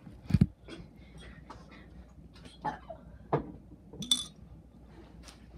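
Someone drinking from a plastic bottle: a loud gulp about a third of a second in, then a few quieter swallows, with sharp taps and a bright clink of the bottle and cap just after the middle.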